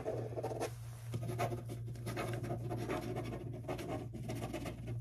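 Continuous scratchy rustling right up against the microphone, made of many small rapid scrapes, over a steady low hum.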